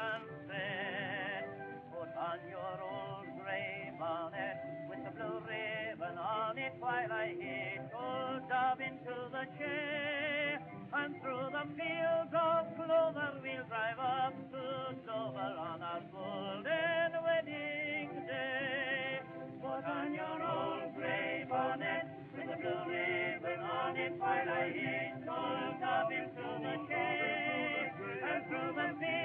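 An old-time popular song playing: voices singing with vibrato over musical accompaniment.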